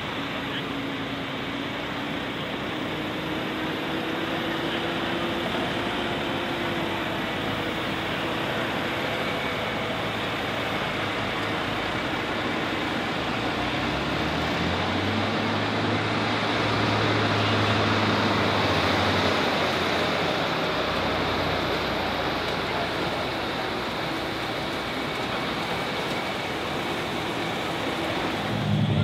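Light super stock pulling tractor's turbocharged diesel engine running at full power during a pull down the track. It is loudest around the middle, then eases slightly.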